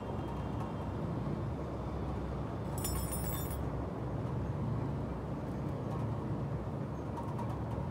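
Light metallic clinking of hydraulic gear pump parts being handled on a steel bench, with one brief bright ringing clink about three seconds in, over a steady low rumble of background noise.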